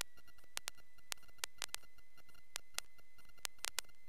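Faint electrical noise on a Cessna 152's intercom audio line: a steady high whine with a dozen or so irregular sharp clicks and a faint fast ticking behind it.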